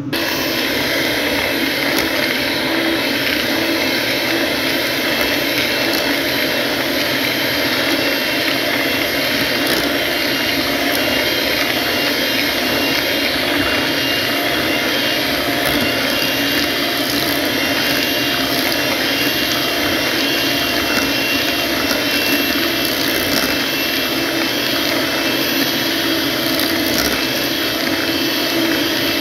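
Electric hand mixer running steadily at a constant speed, its beaters whisking chiffon cake batter in a metal pot.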